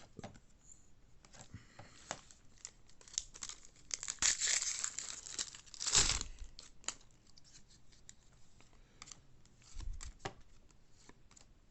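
Foil wrapper of a baseball card pack being torn open and crinkled by hand: scattered small crackles, a dense stretch of crinkling about four seconds in, and a loud tearing burst about two seconds later.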